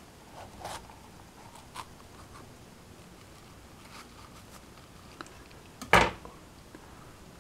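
Knife cutting around the stem of a ripe sweet bell pepper to free the seed core: faint scattered crunches as the blade goes through the flesh, with one louder sharp sound about six seconds in.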